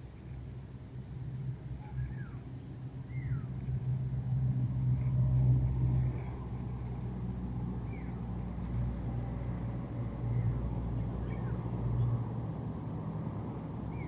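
A low, steady motor hum that swells about four to six seconds in and then eases. A few short, falling bird chirps and faint high ticks come and go over it.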